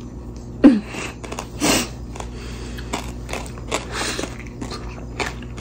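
Someone chewing a mouthful of fruit pulp with crunchy seeds, the seeds cracking in a run of short crunches, with a brief "mm" sound about a second in.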